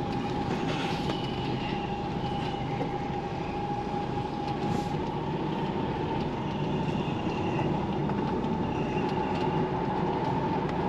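Lorry's diesel engine and drivetrain heard from inside the cab while the truck turns slowly at low speed: a steady drone with a constant whine over it.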